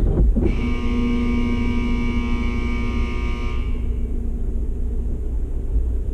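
Tunnel car wash equipment running with a steady low rumble. A steady whine made of several pitches starts about half a second in and stops after about three seconds.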